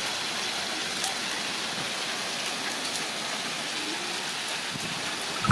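Chicken pieces frying in oil in a pan: a steady sizzling hiss with a few small pops.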